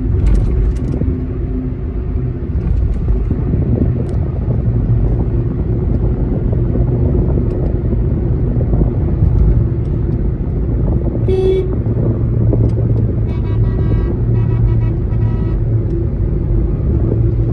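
Steady road and engine rumble heard from inside a moving car. A vehicle horn toots once, briefly, about eleven seconds in, and a couple of seconds later a horn sounds in several broken blasts for about two seconds.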